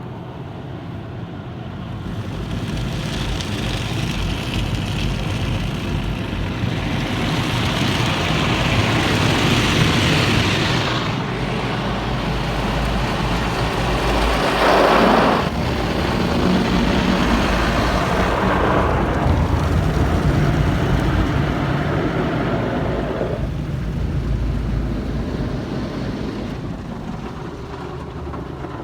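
Car wash running: a steady low rumble under a hissing rush of water spray that swells and fades in waves, with a brief louder surge about fifteen seconds in.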